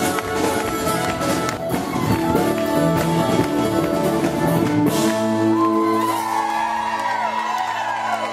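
Live Irish pub band (fiddle, guitars and drums) playing an up-tempo traditional tune. About five seconds in the drumming stops and the band holds a final chord, with high whoops from the crowd rising over it near the end.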